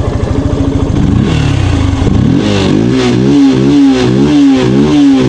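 Motorcycle engine idling with even pulses, then from about a second in revved up and down over and over, its pitch rising and falling about twice a second.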